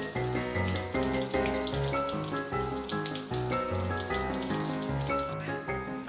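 Kitchen tap running, a steady stream of water splashing into the sink, over background music with a steady bass line; the water cuts off abruptly near the end.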